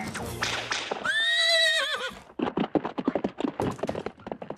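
Cartoon horse sound effects given to a giant ant: a brief rush of noise, then a horse's whinny about a second in, then quick clip-clop hoofbeats fading away.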